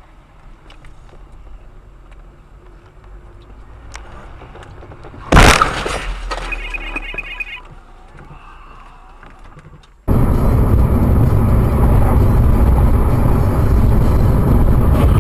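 Car collision recorded on a dashcam: after quiet road sound, one sudden loud crash about five seconds in, trailing off over two seconds, with a short run of high beeps just after. About ten seconds in the sound cuts abruptly to loud steady vehicle noise.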